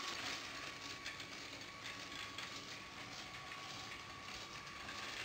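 Lego Power Functions train running on plastic track: a faint, steady motor whine with light clicking from the wheels and gears.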